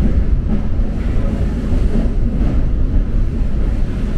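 Steady low rumble of an electric passenger train in motion, heard from inside the coach: running noise of wheels on track.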